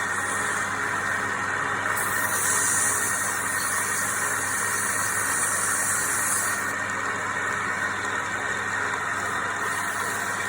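Wood lathe running steadily with a low motor hum. A higher hiss joins about two seconds in and drops away about four seconds later.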